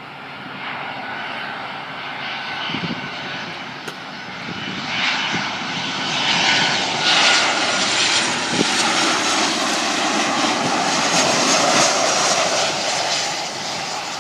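Boeing 737 airliner's twin jet engines on final approach with gear down, a steady roar growing louder as the jet comes near and passes low overhead, loudest in the second half and easing slightly near the end.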